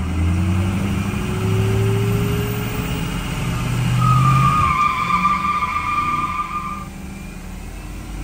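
Diesel pickup engine heard from inside the cab, accelerating with its pitch climbing and stepping up through the gears, loudest about four seconds in. A high whistling whine joins about four seconds in and fades near seven seconds as the engine eases off.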